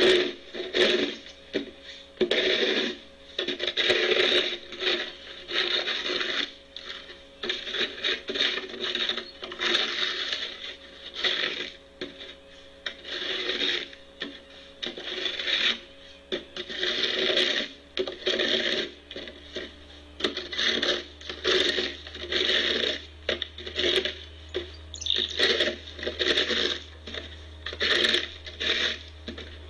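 Snow shovel scraping and pushing snow in repeated strokes, roughly one a second.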